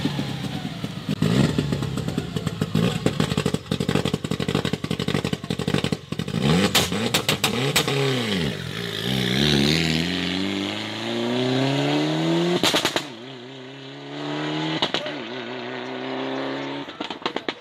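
Rally car engine revving hard at the start line with sharp pops and crackles from the exhaust, then launching and accelerating away, its pitch climbing through each gear and fading with distance. A rapid string of pops begins near the end.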